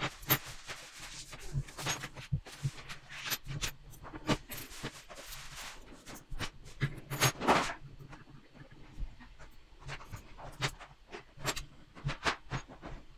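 Small metal parts, nuts and bolts of a construction kit clicking and rattling as they are handled and screwed together by hand, with a louder rattle about seven seconds in.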